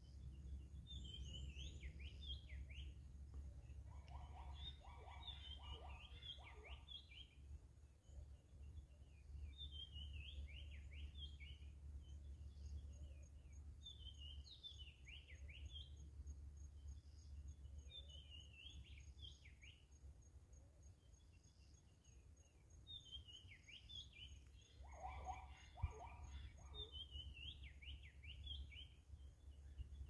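Wild birds singing faintly in trees: one bird repeats short phrases of quick, falling high notes every few seconds, and a lower-pitched call joins in twice, once near the start and once near the end. A low rumble runs underneath.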